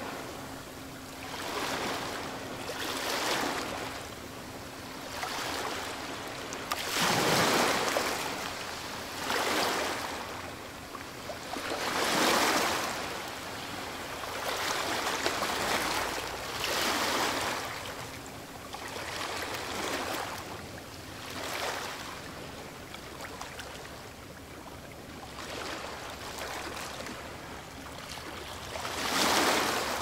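Waves washing in on a shore: a swell of surf noise rises and falls every two to three seconds, some swells stronger than others.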